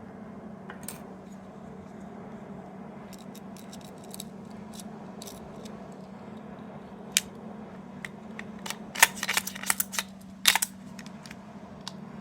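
Small hard plastic pieces clicking and clattering as a capsule toy is handled: a few scattered clicks, then a dense run of sharp clicks about nine to eleven seconds in. A steady low hum runs underneath.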